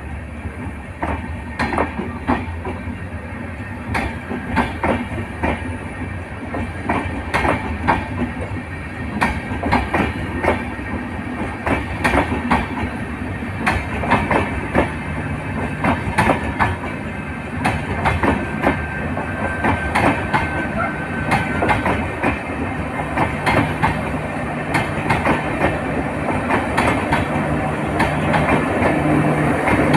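Indian Railways express passenger train running past, its coach wheels clacking over the rail joints in quick, irregular knocks over a steady rush. A low steady hum builds through the second half and grows louder near the end as the rear power car with its diesel generator comes close.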